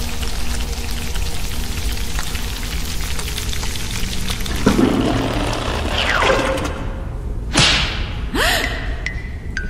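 Cartoon sound effects over a low, dark music drone: sweeping, gliding sounds midway, then two sharp hits a second apart in the last few seconds.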